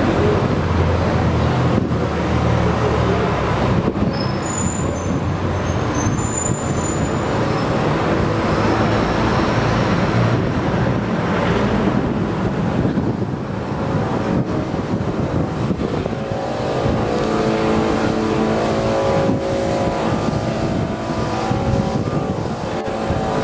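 Street traffic, with car engines running close by: a steady low hum of motors and road noise. Several engine tones come in more clearly about two-thirds of the way through.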